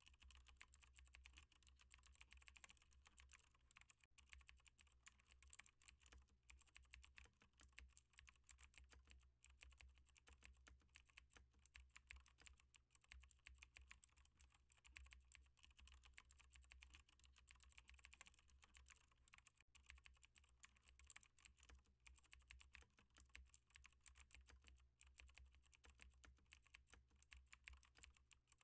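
Faint, fast typing on a computer keyboard: a continuous stream of key clicks over a low, steady hum.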